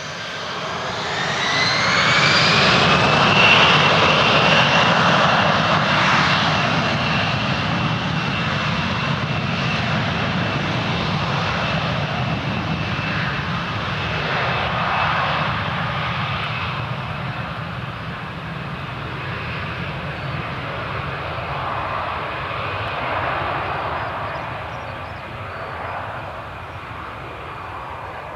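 Airbus A320-200's twin CFM56 turbofan engines spooling up to take-off thrust: a whine rises in pitch over the first few seconds and then holds steady over the loud engine noise. The sound then slowly fades as the jet accelerates away on its take-off roll.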